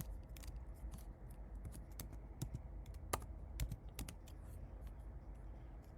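Irregular light clicks of fingers typing and tapping on a device, quick and close together in the first couple of seconds, then sparser.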